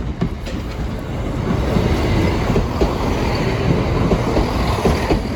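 Class 175 diesel multiple unit passing over the level crossing. Its rumble builds about two seconds in and then holds, with the wheels clacking over the rail joints.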